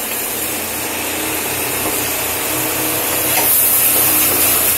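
Chickpea greens and masala sizzling in a pan covered with a steel plate: a steady hiss over a faint low hum, growing a little louder near the end.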